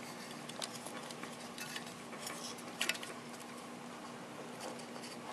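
Faint small clicks and rattles of hands working a carbon-fibre gimbal plate onto a hexacopter frame's mounting posts through rubber isolation bushings, with a sharper double click near three seconds in, over a faint steady hum.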